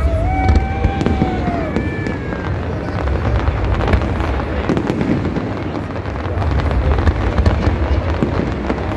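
Aerial fireworks bursting: many quick crackling pops from glittering red shells over a steady low rumble.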